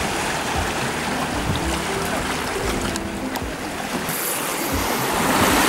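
Sea waves washing against shore rocks with wind buffeting the microphone, getting hissier about four seconds in; faint background music underneath.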